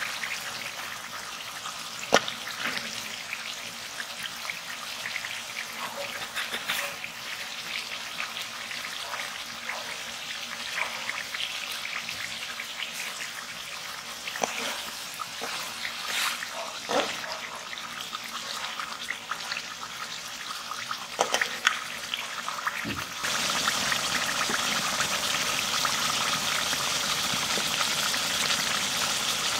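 Rohu fish steaks sizzling in oily masala in an aluminium karahi, with a metal spatula now and then clicking and scraping against the pan. About three-quarters of the way through, the sizzling turns louder and steadier.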